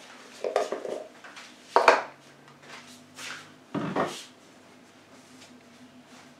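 Knocks and clatter of a wax container and its lid being handled and set down on a work table: four separate sounds in the first four seconds, the loudest a sharp knock about two seconds in.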